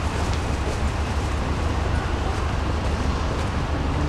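Steady low outdoor rumble with an even hiss above it and no distinct events.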